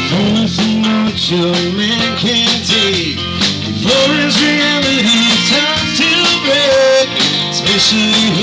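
Live country-rock band playing loud, with electric guitar, bass and drums and a lead line that bends in pitch.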